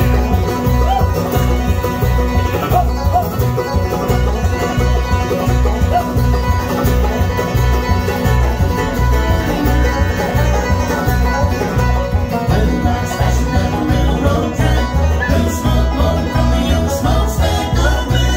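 Bluegrass band playing live with no singing: five-string banjo, mandolin and acoustic guitars together over a steady, driving beat.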